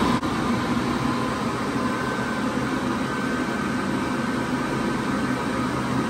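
Chrome push-button Excel Dryer hand dryer running: a steady rush of blown air with a faint high hum from its motor.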